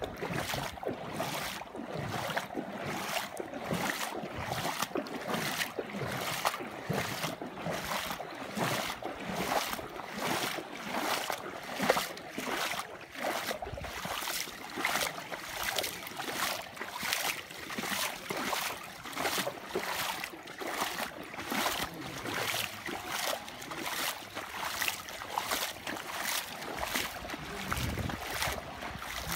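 Steady footsteps at a walking pace, about two a second, over a continuous rushing noise.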